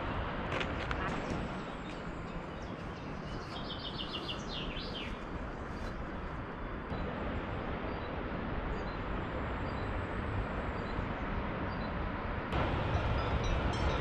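Small birds chirping, one giving a quick run of high repeated notes about four seconds in, over a steady outdoor rushing noise that steps up louder near the end.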